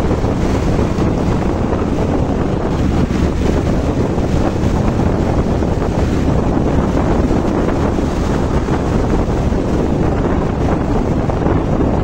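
Wind buffeting the microphone of a moving vehicle, over steady engine and road noise.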